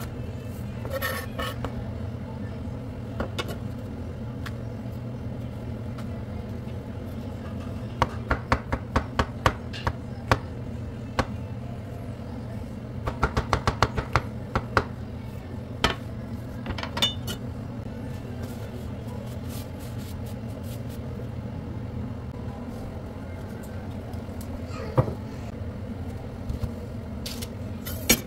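Santoku knife slicing jalapeños and mushrooms on a wooden cutting board: sharp knocks of the blade on the board, a run of about eight strokes and, a few seconds later, a faster flurry, then a few single knocks. A steady low hum lies underneath.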